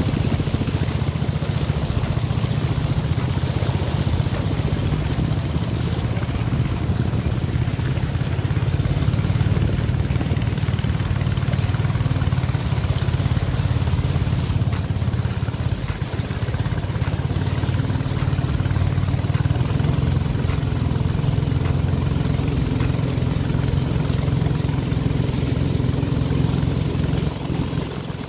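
Inboard engine of a motorised river boat (trawler) running at a steady speed: a constant low drone with an even hiss above it.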